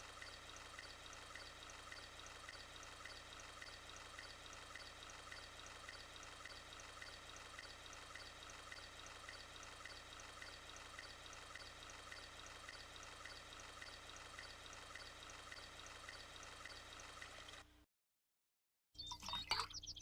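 Faint, steady hiss like running water, with a light ticking about two or three times a second. It cuts off suddenly about eighteen seconds in, and a brief warbling sound follows near the end.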